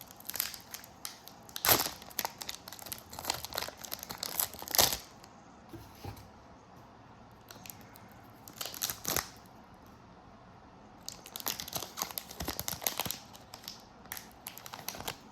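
Wrapper of a Panini Chronicles basketball card pack crinkling and tearing as it is ripped open and handled, in several bursts of crackling with short quiet gaps between.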